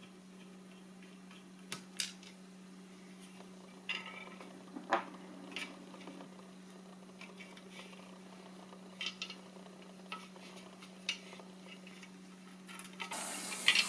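Scattered light clicks and taps as hands work the drone's plastic body shell and GPS module with a small screwdriver, over a steady low hum. A hiss comes up near the end.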